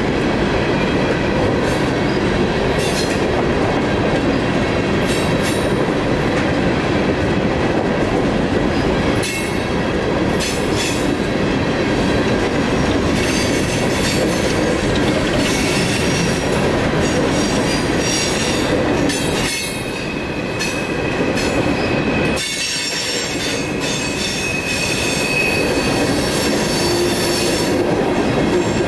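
A string of Herzog open hopper cars rolling past close by: a steady rumble of steel wheels on rail with repeated clacks over the rail joints. A thin high wheel squeal comes in during the second half.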